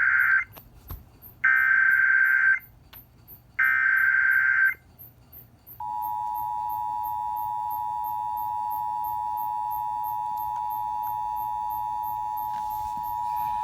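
Emergency Alert System signal relayed over FM radio for a tornado warning: the end of one digital header burst, then two more raspy data bursts of about a second each with short gaps between them, followed from about six seconds in by the long, steady attention tone.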